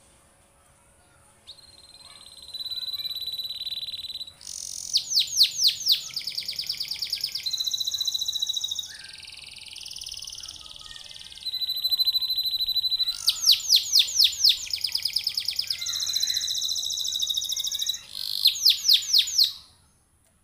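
Domestic canary singing a long song that begins about a second and a half in: held, steady trills alternate with runs of fast, loud, repeated sweeping notes, with a buzzier passage midway. The song stops just before the end.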